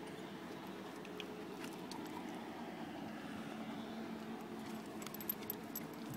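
Large brindle mastiff panting steadily with its mouth open. A metal leash clip or collar tag jingles a few times near the end.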